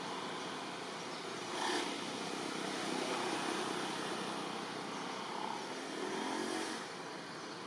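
Steady background noise of distant motor traffic, with a motor vehicle engine briefly louder near the end.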